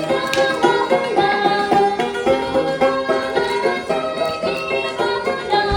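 Traditional folk music led by a plucked string instrument playing quick runs of notes.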